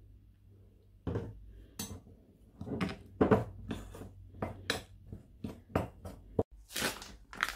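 A hand mixing and squeezing a crumbly dough in a glass bowl: irregular rustling and scraping, with knocks and clinks of fingers and bowl against the glass, starting about a second in.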